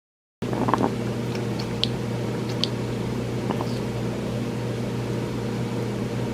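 Steady mechanical hum from a room appliance or fan, starting about half a second in. A few brief high chirps and soft clicks sound over it.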